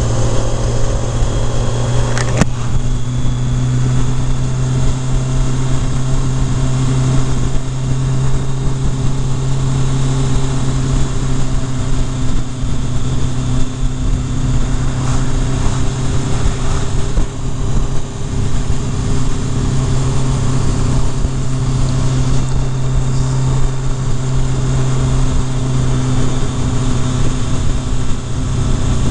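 Kawasaki Concours ZG1000 motorcycle's inline-four engine running at a steady cruise under a broad rush of wind and road noise. In the first two seconds the engine note rises as it speeds up, ending in a sharp click, then it holds steady.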